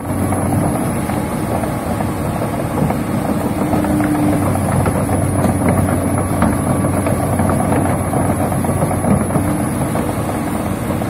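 Komatsu PC200-7 excavator's six-cylinder turbodiesel engine running steadily.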